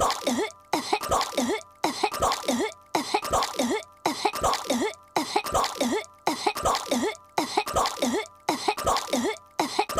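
A cartoon girl's voice coughing and choking on swallowed gum. A short burst of rapid coughs and gags is looped over and over, repeating about once a second.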